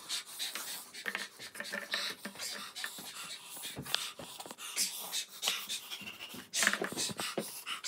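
Quick, airy panting and hissing breaths mixed with short vocal outbursts: a person reacting to the burn of extra-spicy noodles.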